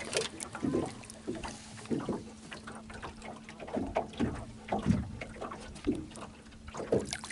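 Water sloshing and splashing at the side of a boat as a largemouth bass is held in the water and released, in irregular splashes, over a steady low hum.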